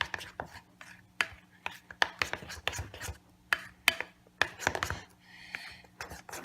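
Spoon clicking and scraping against a bowl in irregular strokes while shaving cream is worked into glue for slime. There is a brief soft hiss a little past five seconds in.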